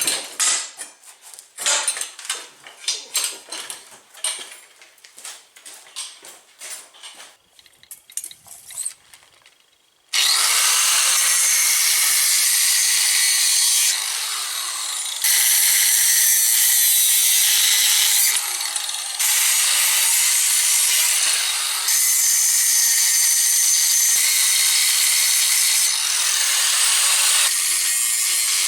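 Clatter and knocks of metal parts being handled for about ten seconds. Then a power tool starts cutting through a steel tube, a loud, steady, high hiss that steps up and down in level as the cut goes on.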